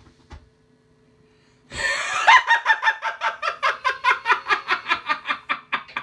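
A person laughing in a rapid, even string of short laughs, starting about two seconds in.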